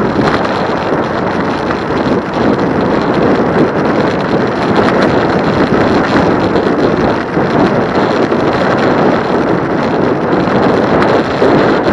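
Loud, steady wind noise buffeting the microphone of a camera on a moving e-bike.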